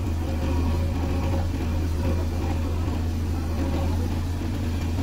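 Diesel engines of a JCB 3DX backhoe loader and a tractor running steadily side by side, a constant low hum with no sharp knocks, as the backhoe swings its boom and bucket over the trolley.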